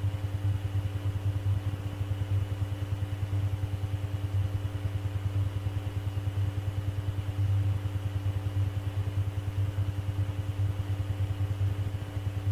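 Steady low electrical hum with a rapid, even pulsing and a few faint steady higher tones: the background noise of an air traffic control radio recording between transmissions.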